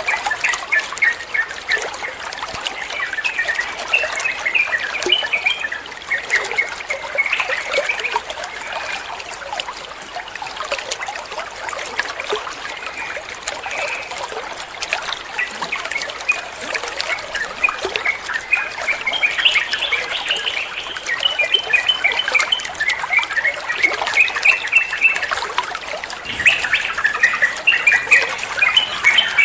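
Yellow-vented bulbul (trucukan) singing long runs of quick, bubbly chirps in the rapid 'ropel' style, louder and denser near the end.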